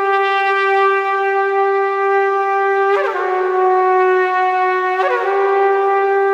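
A single horn-like wind instrument holding long, steady notes with no accompaniment. The pitch steps down slightly about three seconds in and comes back up about two seconds later.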